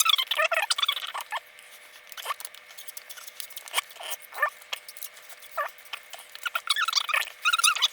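Plastic building bricks and pieces clicking and rattling as a set is assembled, in many short sharp ticks. Short, high, squeaky chirping sounds come in near the start and again near the end.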